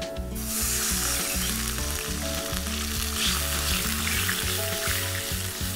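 Cold milk hitting hot ghee in a kadhai and sizzling, starting just after the beginning and going on steadily as a spatula stirs it with the puffed raisins and chironji.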